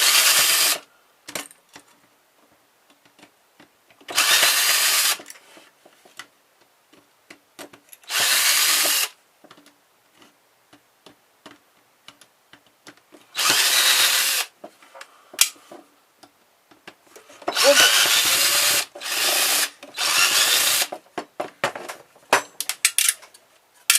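Handheld power drill run in six short bursts of about a second each, taking screws out while a car stereo is taken apart, with small clicks and taps of parts being handled between the bursts.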